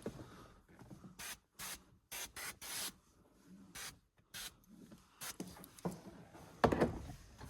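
A hand spray bottle squirting short bursts several times, with rubbing and scrubbing on windshield glass while it is cleaned for tint. A louder scuffing rub comes near the end.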